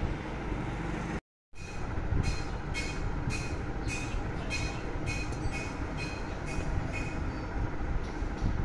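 Steady low background rumble with a run of short rasping strokes, about one every half second, as a plastic wrapping strip is pulled tight around a motorcycle carrier rack's metal bar. The sound cuts out completely for a moment about a second in, then the strokes stop shortly before the end.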